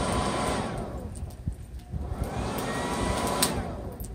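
Hair dryer blowing air into a charcoal forge: its motor whine runs steadily, drops in pitch as it spins down about a second in, climbs back up, and spins down again near the end, with a click just before the last drop.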